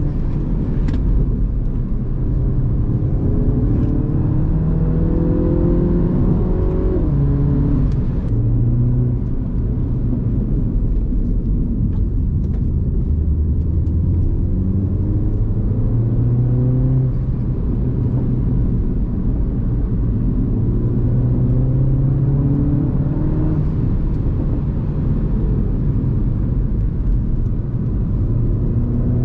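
Mini Cooper S F56's turbocharged four-cylinder engine on its stock exhaust, heard from onboard during a brisk drive. The revs climb in repeated pulls and drop back at gear changes, with a sharp drop about seven seconds in.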